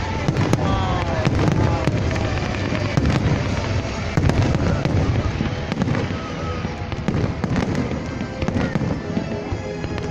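Fireworks display going off without pause: many overlapping deep booms and sharp cracks.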